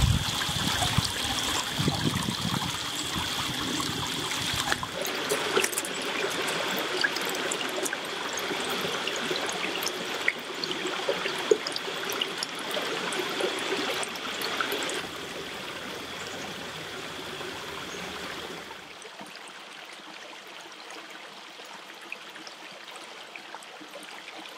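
Small rocky brook running and trickling over stones, with a steady high tone above the water for the first half. The water sound drops quieter in two steps, a little past halfway and again about three-quarters of the way through.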